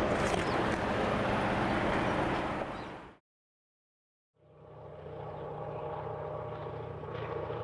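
A diesel train running, fading out about three seconds in. After a second of silence, a second, quieter diesel engine drone fades in and holds steady.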